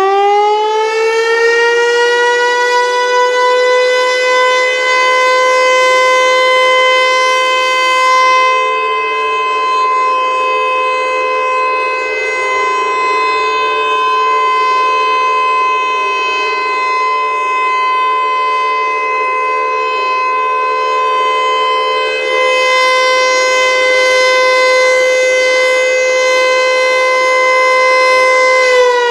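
Federal Signal Eclipse 8 DC electronic outdoor warning siren sounding its short steady alert, loud. The pitch finishes rising in the first couple of seconds, holds one steady tone, then begins to wind down at the very end.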